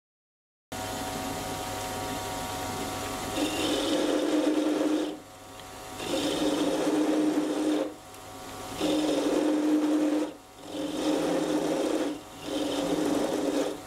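Sieg C3 mini lathe running and taking a 0.5 mm deep cut in mild steel with a high-speed-steel tool ground for brass. The motor and gear train run steadily at first, then the cutting comes in five louder stretches of a second or two each, dropping back briefly between them.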